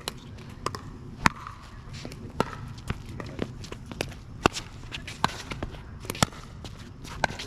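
A pickleball rally: sharp pocks of the plastic ball being struck by paddles and bouncing on the court, about one every second or less, with players' footsteps on the court.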